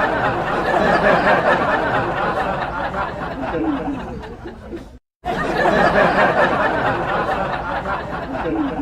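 Canned studio-audience laughter: a large crowd laughing together, rising and falling. It breaks off into a brief silence about five seconds in, then the same laugh track starts over.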